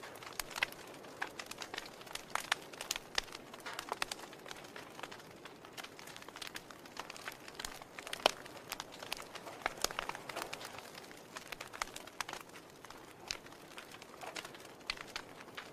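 Wood logs burning in a fireplace, crackling with irregular sharp pops over a soft steady hiss of flame, one pop about eight seconds in louder than the rest.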